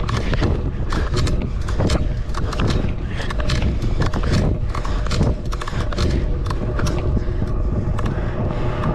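Heavy low rumble of wind on the microphone, with a steady run of clicks, knocks and clatter several times a second, typical of fast movement outdoors.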